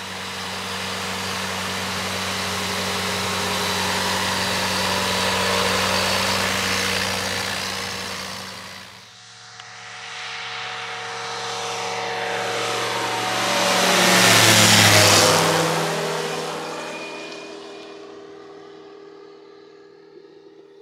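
Single-engine propeller light aircraft: the engine runs steadily, then after a break the plane takes off and passes close by with a falling pitch as it goes over, then fades as it climbs away.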